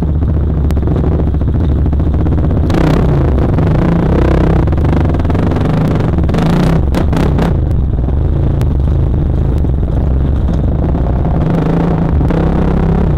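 Dirt bike engine running close up under varying throttle, with short clattering knocks from the bike over rough ground about three seconds in and again around seven seconds.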